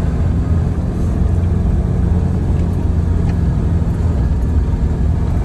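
Four-wheel drive cruising along beach sand, a steady low drone of engine and tyre noise heard from inside the cabin.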